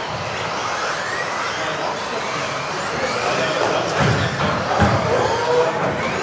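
Several electric RC off-road buggies racing together, their motors whining up and down in pitch as they speed up and slow down, over a haze of tyre noise. A few low thumps come about four to five seconds in.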